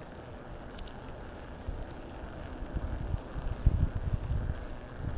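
Wind buffeting the microphone, as uneven low rumbling gusts that grow stronger in the second half.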